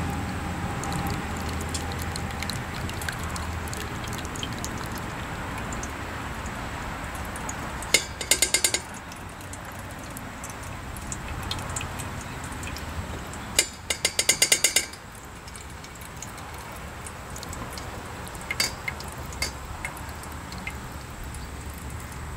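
Starch water being poured from a bowl through a fine-mesh stainless steel strainer into a steel pot, straining it off the gluten: a steady pouring trickle. Two runs of quick metal clinks come about 8 and 14 seconds in, with a few single clinks later.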